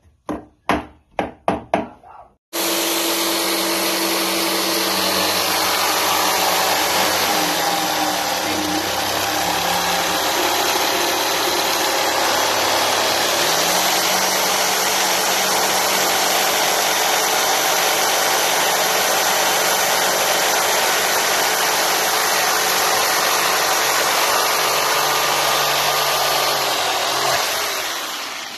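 A run of about six sharp knocks, then an electric jigsaw starting up and running steadily as it saws through a plywood board, its motor pitch shifting a little with the cut, before winding down near the end.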